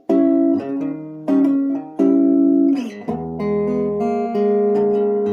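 1960 Guild T100 electric guitar played through a tube amp: a few picked notes and chords, then a chord about three seconds in that is left ringing.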